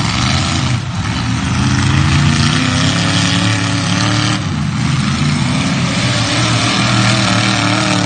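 Demolition derby car engine running loud and continuously, its pitch rising and falling as it revs, with brief let-offs about a second in and again about four and a half seconds in.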